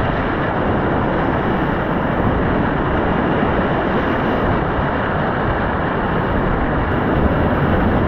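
Loud, steady rush of big whitewater rapids at high flow, heard from inside them as a kayak plows through waves and foam, with water splashing over the boat.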